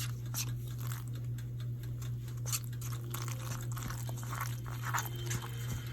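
Spoon stirring saucy macaroni and cheese in a bowl: irregular soft scrapes, clicks and squishes, over a steady low hum.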